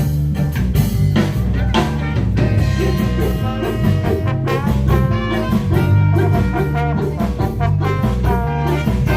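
Jazz or swing music with brass, a bass line and a drum kit, playing steadily.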